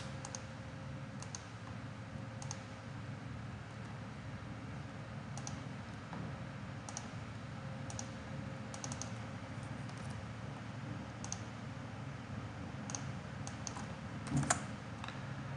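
Scattered short clicks of a computer mouse and keyboard as menus are opened and a value is typed in, over a steady low background hum. The clicks come irregularly, a few in quick pairs, with a slightly stronger one near the end.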